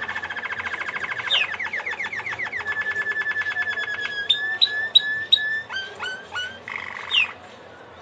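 Male domestic canary singing: a fast trill of rapidly repeated notes, then slower series of falling notes and a short buzzy roll, stopping near the end. Continuous song like this is a sign that the male has come out of moult and rest into breeding condition.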